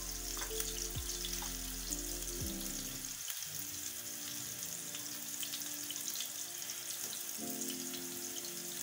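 Minced-meat kebab patties sizzling in shallow oil in a nonstick pan, a fine steady crackle, under background music with held notes. A low hum stops suddenly about a third of the way in.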